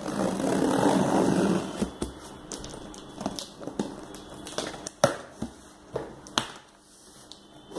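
Utility knife cutting through packing tape and cardboard on a box, a rasping scrape for about two seconds, then scattered clicks and knocks as the box is worked open.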